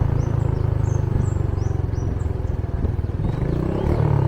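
Small motorcycle engine running steadily under way, with a rapid even firing pulse. A few short high chirps sound over it in the first half.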